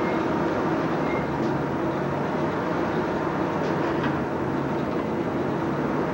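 Blacksmith's forge running, the steady rushing noise of its air blast with a faint steady hum, while the iron heats for a forge weld.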